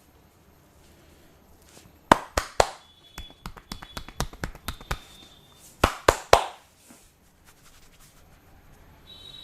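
Barber's hands striking sharply during an Indian head massage: three quick loud cracks about two seconds in, a run of lighter ticks at about three to four a second, then three more quick loud cracks about six seconds in.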